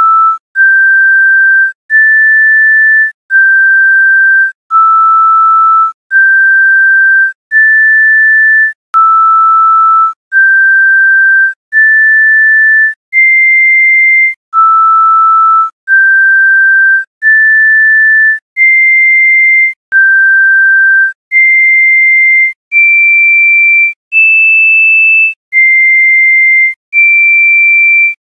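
A slow melody of pure electronic sine-wave beeps, one high-pitched note about every second and a third, each held steady and separated by a short gap. The notes step up and down and climb higher near the end.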